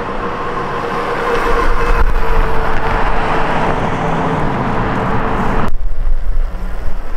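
Steady road-vehicle noise, an even rushing with a steady hum, that drops off abruptly about six seconds in to a quieter background.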